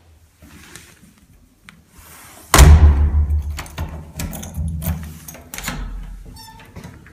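Interior doors being opened by hand: a round knob turned and a lever handle pressed, with latch clicks and knocks. A sudden loud thump about two and a half seconds in is the loudest sound, and a short rattle comes near the end.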